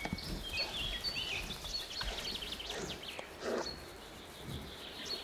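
Small birds chirping and twittering, many short high calls overlapping throughout, with a brief soft low sound about three and a half seconds in.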